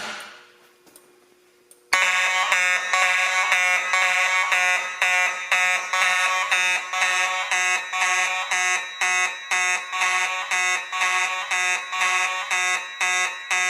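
Fire alarm horn set off by pulling a manual pull station: after about two seconds of quiet, a buzzy horn tone starts abruptly and pulses steadily about twice a second.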